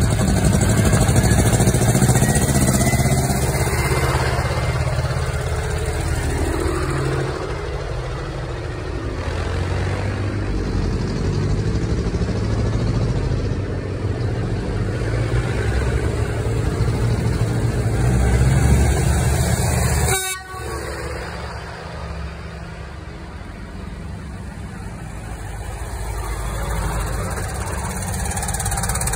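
Several vintage tractor engines running at low speed as old tractors, a Fendt first among them, drive slowly past one after another, with a low, steady chugging.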